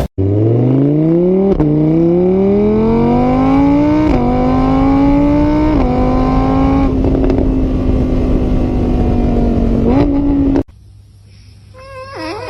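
Car engine accelerating hard, its pitch climbing and dropping back at each gear change, then holding at a steady high speed before cutting off suddenly.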